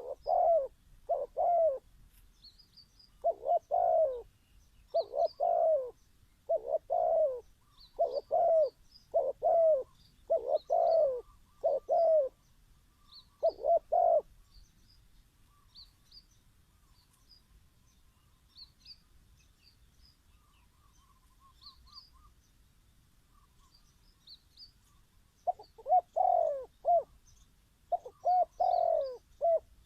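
Spotted dove cooing in repeated short phrases of low notes, falling silent for about ten seconds midway and calling again near the end. Small birds chirp faintly and high-pitched in the background.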